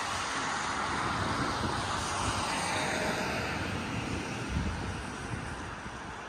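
Outdoor city ambience: a steady rushing noise, louder in the first few seconds and easing off toward the end.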